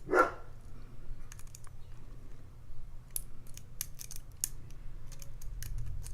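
Lock pick and tension wrench working the pin stacks inside a challenge padlock: irregular small metallic clicks and scrapes as pins are lifted one at a time. The pins keep dropping back instead of setting. A short vocal sound comes right at the start.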